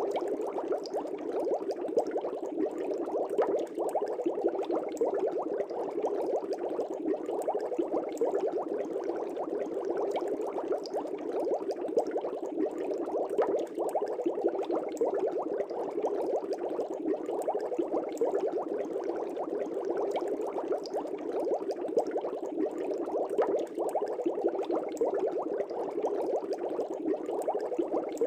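Fish tank bubbling steadily: a dense, continuous stream of air bubbles breaking at the water surface, with many small pops throughout.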